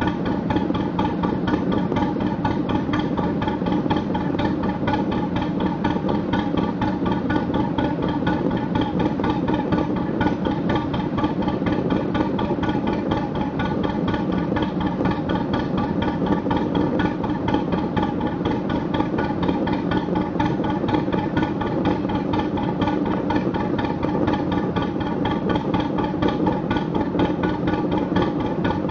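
A narrowboat's National 2DM two-cylinder diesel engine running steadily with an even, fast beat as it drives the boat along.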